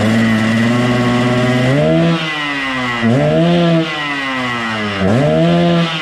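Yamaha RX-King's two-stroke single-cylinder engine, tuned in the Medan 'ngorok' style, running steadily and then blipped three times. Each rev rises sharply, holds for about a second and sinks slowly back to idle.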